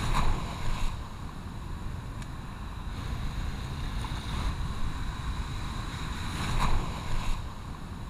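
Surf washing in over a rocky shore, with wind buffeting the microphone. Two louder wave surges stand out, one at the start and another about six and a half seconds in.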